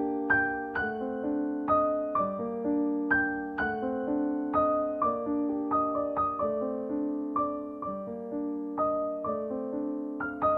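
Background music: a piano playing a steady, unhurried run of notes, about two a second, each ringing and fading.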